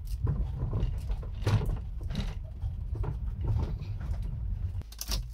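Car cabin sound of a car driving slowly over a rough unpaved street: a steady low rumble with frequent knocks and rattles as it goes over bumps.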